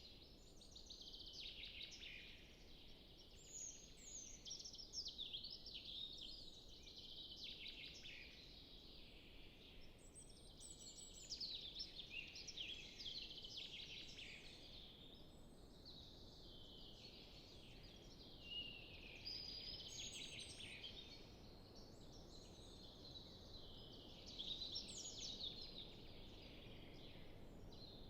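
Several forest songbirds singing at once, faint, in overlapping quick phrases that swell every few seconds, over a soft steady background hush.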